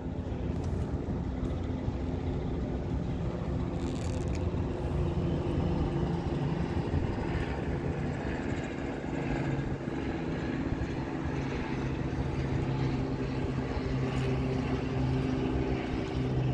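Steady engine drone, a constant low hum with several held tones that barely change in pitch.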